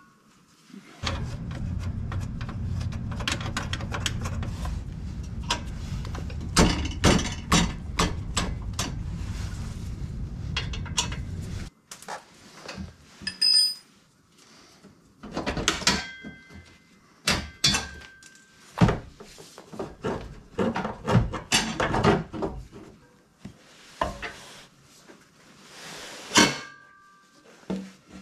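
Wrenches and a car's custom exhaust muffler clanking and knocking as the exhaust is unbolted and taken down, in sharp, irregular metal knocks. For roughly the first ten seconds a steady low hum runs beneath the knocks, then cuts off suddenly.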